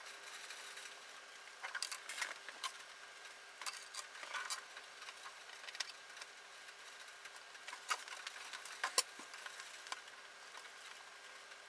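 Faint, scattered light clicks and ticks from a wire and tweezers being handled against a circuit board during soldering, over a faint steady hum.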